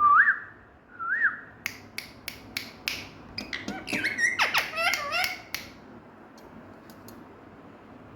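Indian ringneck parrot (rose-ringed parakeet) giving two short whistled notes, then a string of sharp clicks and a burst of squeaky, gliding chatter that stops about halfway through.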